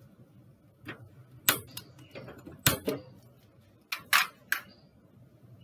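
Hand-held piezo gas lighter clicking several times, sharp separate clicks, as a gas stove burner is lit.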